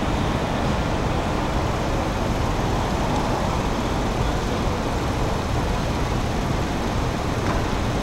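Steady city traffic noise: a continuous rumble of road vehicles, with no bell chime standing out.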